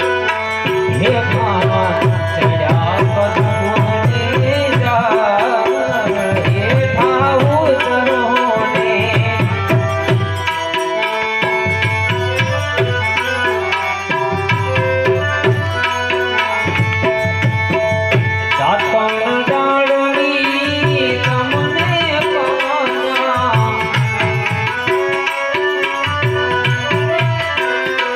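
Devotional music: a harmonium carries the melody over a steady tabla rhythm, and the drum drops out for brief moments several times.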